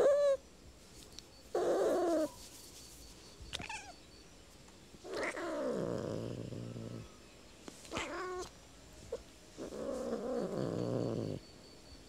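Domestic cat meowing six times: four short calls and two longer, drawn-out ones, the first of which slides down low in pitch.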